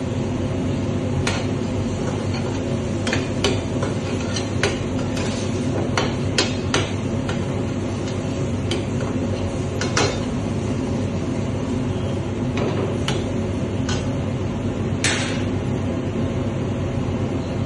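A metal ladle clinks and scrapes against a steel pan as a curry is stirred: over a dozen sharp taps at uneven intervals, and a longer scrape about fifteen seconds in. Beneath them a steady drone from the gas range runs throughout.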